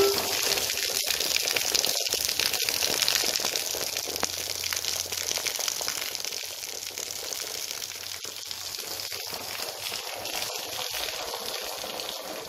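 Steady rain falling, an even hiss that slowly grows quieter.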